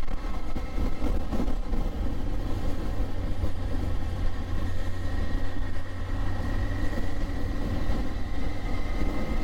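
Yamaha Thunderace's inline-four engine running at a steady cruise, a constant hum under heavy wind rumble on the microphone.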